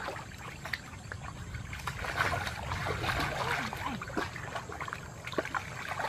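Hands splashing and sloshing through shallow muddy water while groping for fish, with irregular small splashes and drips, busiest in the middle, over a steady low rumble.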